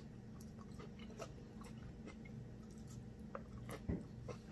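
Quiet close-up chewing of buttered green beans, with small wet mouth clicks over a low steady hum. There is a short knock near the end.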